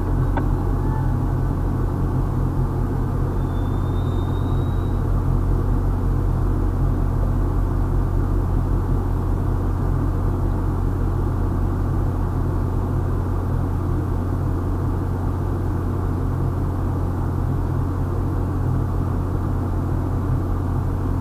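Steady low idling engine rumble with an even hum, heard inside a car's cabin.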